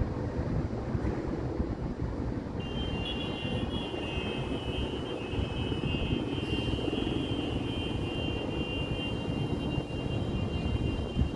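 Steady low rumble of distant city traffic heard from high above the streets. About two and a half seconds in, a steady high-pitched whine joins it.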